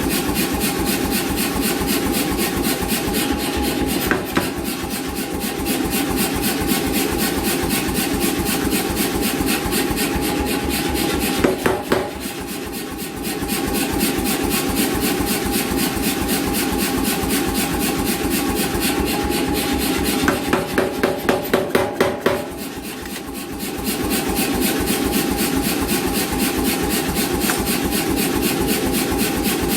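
88 lb C41 air power hammer running and striking steel in a fast, steady run of blows, stopping briefly three times while its motor keeps running. About two-thirds of the way through, a run of about eight separate, louder single blows comes before a short lull.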